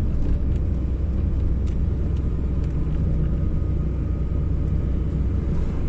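Road noise inside a moving car: a steady low rumble.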